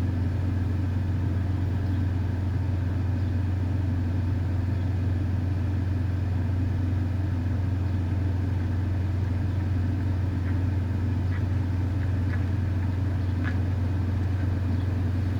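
Steady low hum of an idling vehicle engine, with a few faint ticks about ten seconds in.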